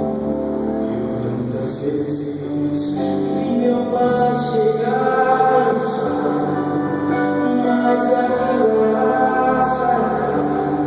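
A solo voice singing a slow melody over held keyboard chords.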